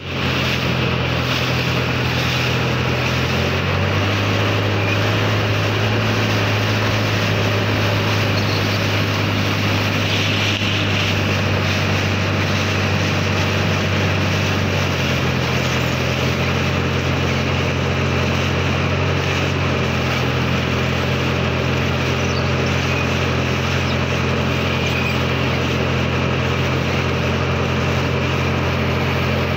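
Motorboat engine running steadily under way, with water rushing and splashing past the hull. The engine note drops a little about four seconds in and rises again about halfway through.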